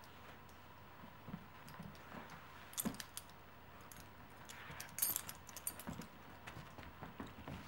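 Two dogs playing with plush toys on carpet: faint scattered knocks, shuffling and clicks, with a brief jingle of collar tags about three seconds in and again about five seconds in.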